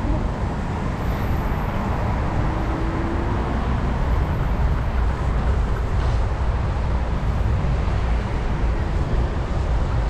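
Steady noise of city road traffic, with a low wind rumble on the microphone of a moving camera.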